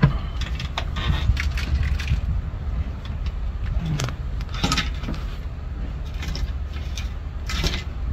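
An engine running steadily with a low rumble, with short metallic clinks and rattles now and then.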